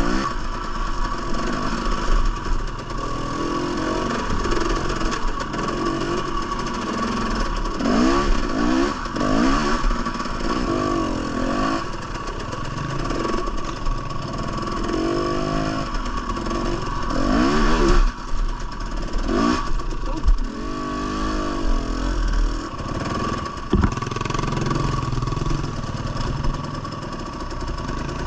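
Two-stroke dirt bike engine revving up and falling back again and again as it is fed throttle in short bursts on a rocky climb. A few sharp knocks come in the second half.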